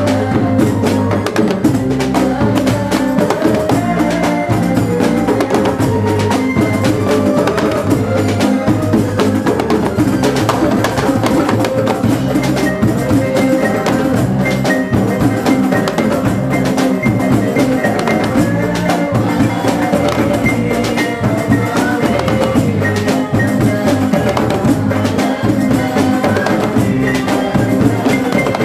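A live band playing a song: electric guitars over a steady drum beat, with a young male singer on a microphone.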